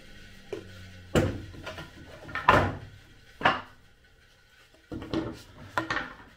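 Thin wooden boards being handled and set down on a table saw's cast-iron top: a few separate wooden knocks, the loudest about two and a half seconds in, then a run of lighter clatters near the end.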